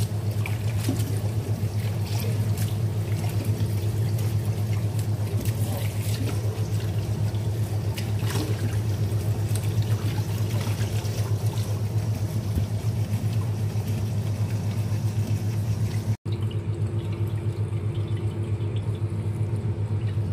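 Running water splashing onto molokhia leaves in a stainless steel strainer as they are rinsed and rubbed by hand, over a steady low hum. The sound cuts out for an instant about sixteen seconds in, and the splashing is fainter after it.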